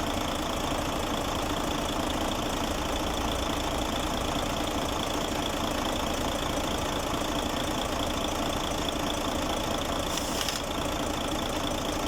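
Freshly overhauled Mercedes-Benz Actros 2040 diesel truck engine idling steadily, with a brief hiss about ten seconds in.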